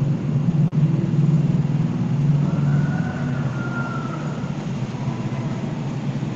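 A steady low rumble, broken by a brief dropout under a second in.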